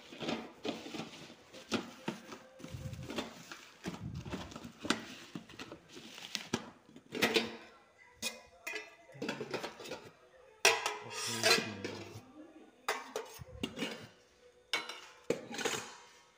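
Nested stainless steel pots and lids clinking and clanking against each other as they are handled, a string of sharp metal knocks with ringing after them, loudest about two-thirds of the way through.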